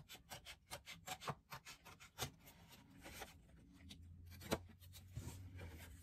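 Scissors snipping scrapbook paper, faint: a quick run of short snips, then slower ones, the loudest about four and a half seconds in.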